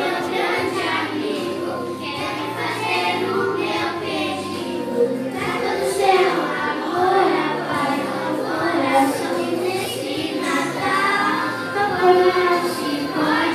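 A group of children singing a song together, with musical accompaniment underneath.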